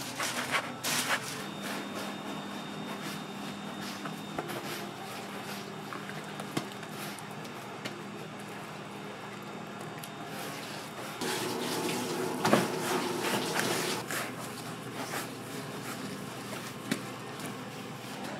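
Gloved hands coating bread slices: soft pats and ticks as breaded slices are set on a metal tray, then sloshing, squelching thick batter as a slice is worked through it, loudest for a few seconds past the middle. A steady low hum runs underneath.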